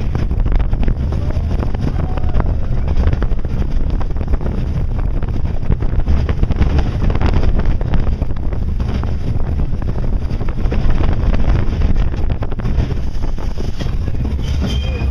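Steel family roller coaster running along its tubular track, heard from the front car: a steady low rumble of wheels on the rails with constant rattling and wind on the microphone, and a brief high squeak near the end.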